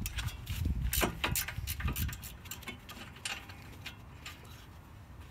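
Irregular metal clicks and clinks of a wrench on the brake caliper bracket's bolt and of the steel bracket being handled on the brake rotor, with a few dull knocks in the first two seconds.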